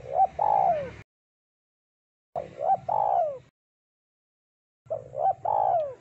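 Spotted dove (tekukur) cooing: three phrases about two and a half seconds apart, each two short coos and then a longer, deeper note that falls in pitch.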